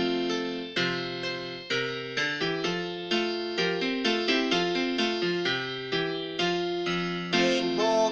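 Keyboard playing an instrumental introduction to a children's song, a new chord struck every half second to a second.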